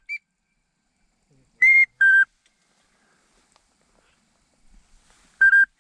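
Duck whistle call blown by a hunter to bring in working ducks: short, loud whistled notes in pairs, one note higher and one lower, about two seconds in and again near the end.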